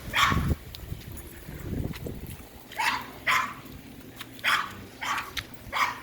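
Dog barking in play, about six short, sharp barks spread irregularly through the few seconds.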